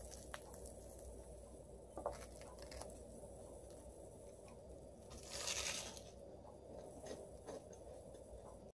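Faint tabletop handling sounds over a low room hum: a few light clicks and crackles, and one brief rustling crunch a little after halfway, consistent with crisp toast and a plate being handled.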